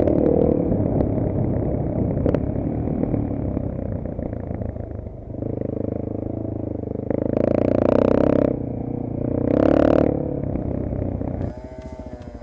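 Yamaha enduro motorcycle engine running with its exhaust, revved up twice in short bursts partway through, then dropping back near the end.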